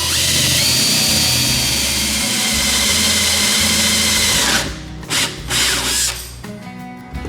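A power tool running steadily for about four and a half seconds, with a high whine that steps up in pitch early on, then stopping; two short bursts follow. Background music plays underneath.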